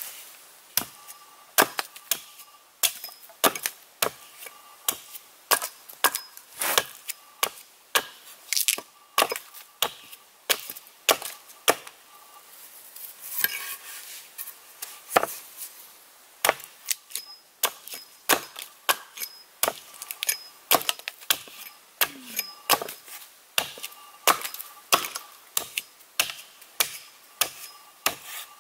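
Hatchet chopping into the end of a green red alder pole held upright on a board, tapering it down and splitting off chips. The chops are sharp and regular, about one and a half a second, with a short pause about halfway.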